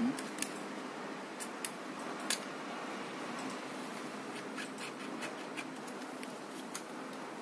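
Scattered small plastic clicks and scrapes as a Holy Stone F181 drone's white plastic gear is pushed onto its shaft and seated in the motor housing. A faint steady low hum runs underneath.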